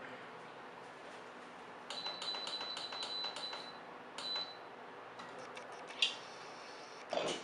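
Metal kitchen utensils clinking against a metal cooking pot: a run of about seven quick taps with a high ringing tone, another ringing tap, then a sharp single clank and a short scraping clatter near the end.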